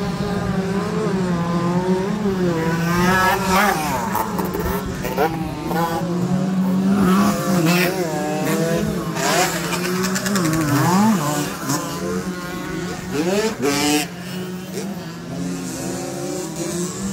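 Several small 50 cc two-stroke enduro motorcycle engines running and revving, their pitch rising and falling as riders work the throttle, with one engine holding a steady note underneath.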